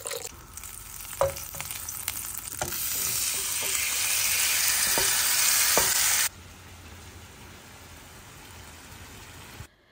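Marinated raw shrimp sizzling in butter and oil in a frying pan: a few pops at first, then a loud sizzle that builds from about three seconds in as the shrimp hit the hot fat. It drops suddenly to a steadier, quieter sizzle as they fry on.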